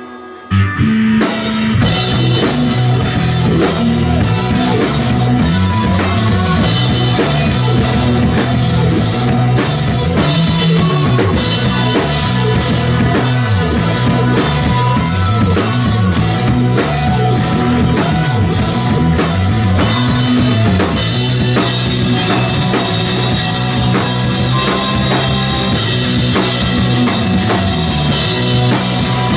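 Live rock band playing: electric guitar, electric bass, keyboard synthesizer and drum kit, with a prominent moving bass line and steady drums. The sound drops out for about a second at the start, then the full band comes back in.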